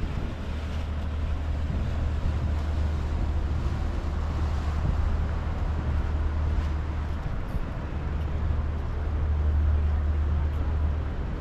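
Wind buffeting the microphone, with a low steady rumble underneath.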